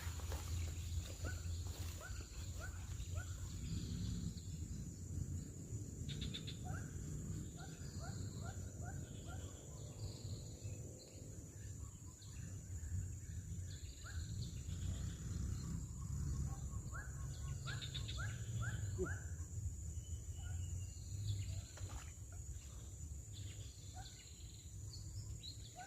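Rural outdoor ambience: a steady low rumble with a thin high insect drone, and several runs of short, quick rising chirps from a bird.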